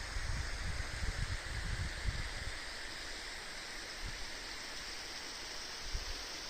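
Steady rush of running water from a mountain spring stream, with wind buffeting the microphone in low gusts during the first couple of seconds.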